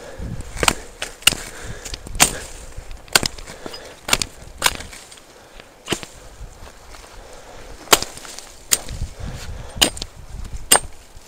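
Repeated sharp chopping blows of a hand blade into a thin young tree trunk, about a dozen strikes at an uneven pace.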